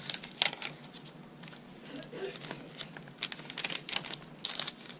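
Paper pages of a handmade junk journal rustling and crinkling as they are turned and handled, with scattered short taps and rustles.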